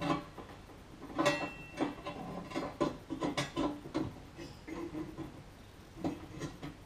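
Small irregular clicks and light knocks of a replacement bulb being fitted by hand into a microwave's lamp holder, busiest in the middle of the stretch, with a few more near the end.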